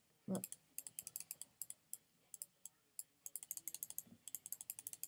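Rapid clicking at a computer, small sharp clicks about ten a second in runs broken by short pauses. A short low vocal sound comes about a third of a second in.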